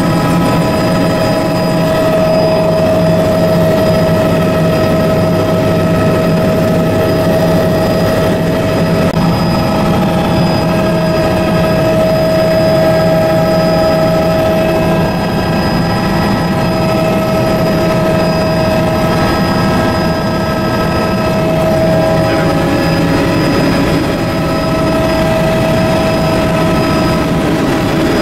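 Helicopter in flight: steady engine and rotor noise with a constant whine over it.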